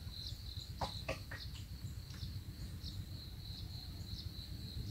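Insects trilling steadily at one high pitch, pulsing evenly, over a low rumble. A few sharp clicks come about a second in.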